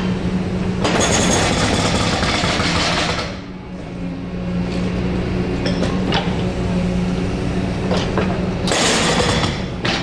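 Excavator's diesel engine running steadily while its hydraulic breaker hammers in rapid, continuous blows. The breaker runs for about two seconds starting a second in, and again briefly near the end, with a few single knocks in between.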